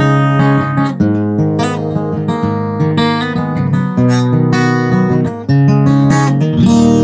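Acoustic guitar strummed in an instrumental passage, chords ringing between sharp strokes, with heavier strokes at the start, about a second in, about four seconds in and about five and a half seconds in.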